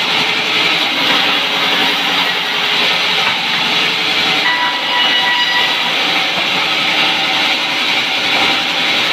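Sawmill band saw running and cutting a log into planks: a loud, steady whir and hiss of the blade in the wood, with a thin whine joining in about halfway through.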